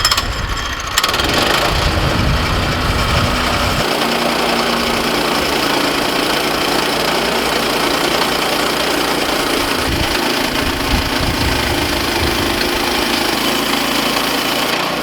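Woodland Mills HM122 portable bandsaw mill running, its gas engine driving the band blade through a log. The sound jumps up about a second in and then holds steady.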